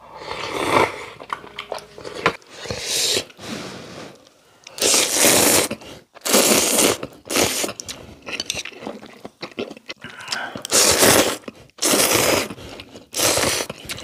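People slurping ramen noodles and broth from bowls: a series of loud slurps, each under a second, with short pauses between them.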